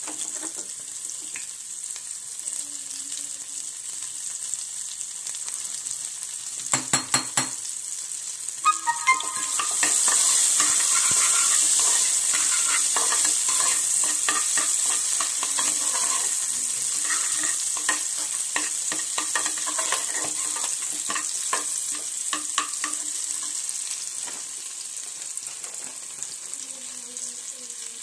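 Chopped onions sizzling in hot oil in a steel pan for a tadka, stirred with a spatula. A few sharp knocks come about seven seconds in, and the sizzling gets louder from about ten seconds in, with scattered crackles.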